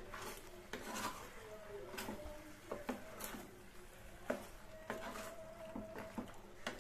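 A wooden spatula stirring and tossing penne pasta in a metal pan, with irregular knocks and scrapes as it strikes the pan.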